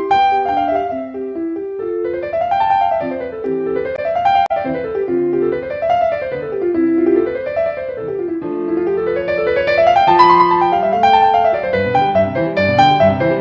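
Piano music with quick runs of notes sweeping up and down, joined by a lower part in the second half.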